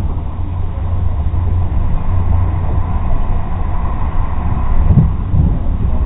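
Interior running noise of a TGV trainset at speed, heard inside the passenger car: a steady low rumble from the wheels and running gear. A short thud stands out about five seconds in.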